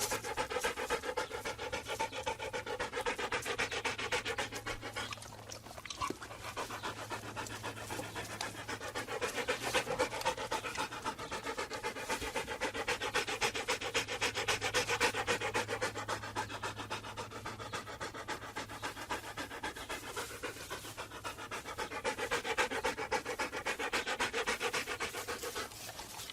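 A dog panting: fast, continuous in-and-out breaths, several a second, that swell louder and ease off in waves, with a brief lull about five seconds in.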